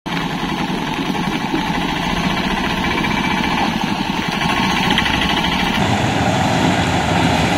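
Autorickshaw engine running with a rapid, rattly chug as the three-wheeler crawls through potholes. The sound turns brighter and a little louder near the end.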